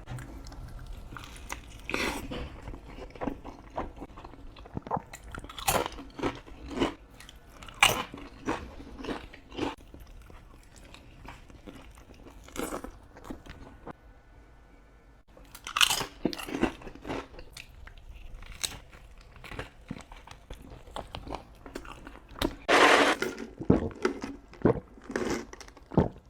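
Close-miked eating: irregular crunchy bites and chewing of fast food, with a short pause in the middle and one louder, longer crunch near the end.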